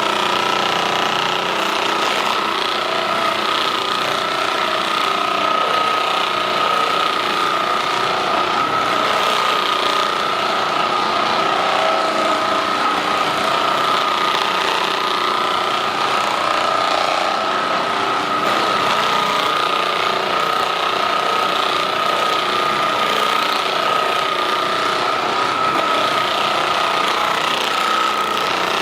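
Handheld percussive massage gun running at a steady speed, with a constant high whine.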